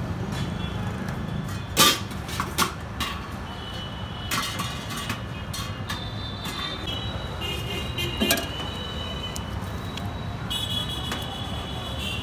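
Busy street ambience: a steady traffic rumble with high tones coming and going. A few sharp clinks and knocks of utensils on steel and plastic stand out, the loudest about two seconds in.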